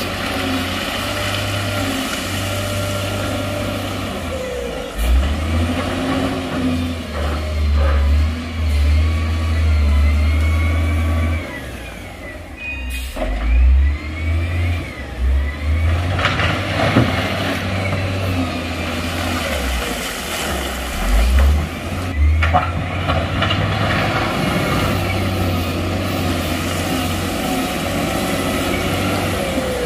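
Heavy diesel engine of earthmoving machinery running under load and revving, its deep rumble surging and easing again and again. The engine drops away briefly about twelve seconds in.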